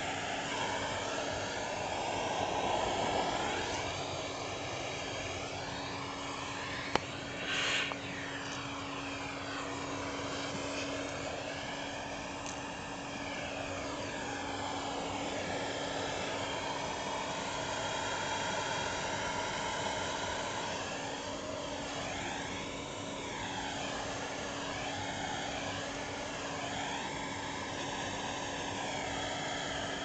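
Vacuum cleaner running steadily: a constant low hum under the rush of air, its tone shifting slowly as the hose nozzle is moved about over the carpet. A single sharp click about seven seconds in, followed by a brief louder rush.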